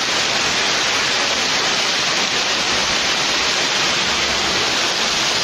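Heavy rain pouring down in a downpour: a steady, even hiss of rain.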